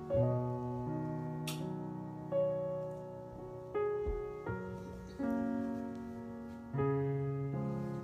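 Background piano music: slow, sustained chords changing about every second and a half. A single sharp click comes about a second and a half in, and a brief low thump about halfway through.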